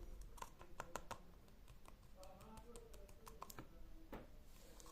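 Faint, irregular clicks and taps, several in the first second and a half, then sparser with one more about four seconds in.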